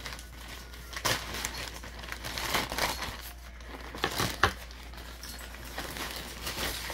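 Plastic poly mailer bag crinkling as it is handled and pulled open, with a few louder crackles about one second in and again around three and four seconds in.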